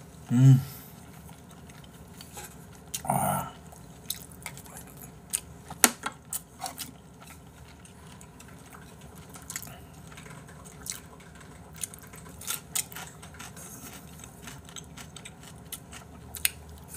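Close-miked mukbang eating sounds: chewing and lip-smacking of braised chicken and rice, with scattered sharp clicks of chopsticks and a spoon against bowls. Two brief low vocal sounds come in the first few seconds.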